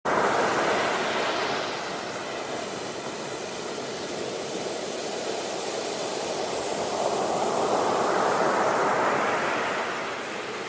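Sea waves washing in: a steady rush of surf that is strongest at the start, swells again about seven to nine seconds in, then eases off.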